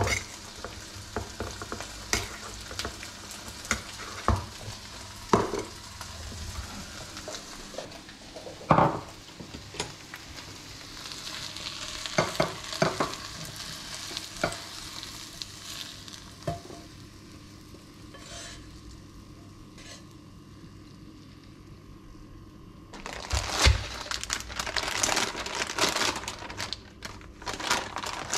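A spoon stirring and clinking in a small metal bowl, then food sizzling in a frying pan as vegetables are scraped out into a bowl. Near the end, a plastic packet crinkles as it is handled.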